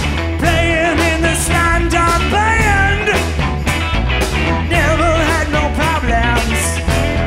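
Live rock band playing: electric guitars, bass and drums keep a steady beat under a wavering lead melody line.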